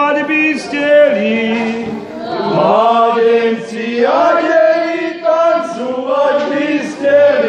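Singers performing a slow Slovak folk funeral lament, moving from one long held note to the next.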